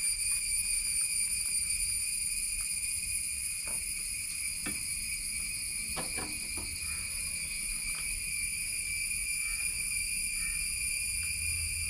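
Steady, high-pitched insect chorus that does not change, with a few faint knocks about halfway through.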